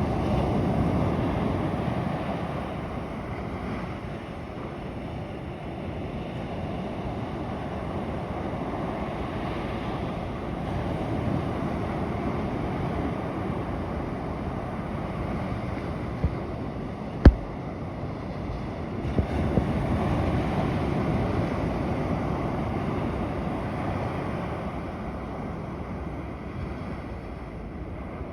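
Ocean surf washing onto a beach, a steady rushing that swells and eases as waves come in. A single sharp click sounds about two-thirds of the way through.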